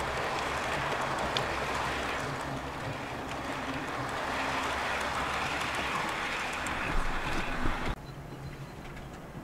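OO gauge model train of Pullman coaches running past close by, a steady rattling rush of wheels on rail with a few sharp clicks near the end. About eight seconds in the sound drops abruptly to a quieter low hum.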